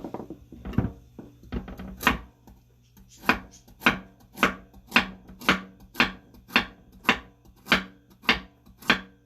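Knife chopping vegetables on a cutting board: a few uneven cuts at first, then steady strokes a little under two a second from about three seconds in.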